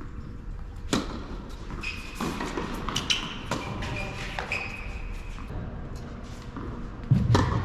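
Tennis balls being struck and bouncing on an indoor hard court: a handful of sharp knocks, the heaviest near the end. Short high squeaks come between them, typical of court shoes on the surface.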